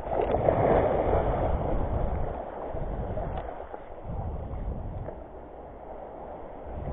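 Small waves washing and splashing over shoreline rocks, with wind rumbling on the microphone; louder in the first second or two, then rising and falling in surges.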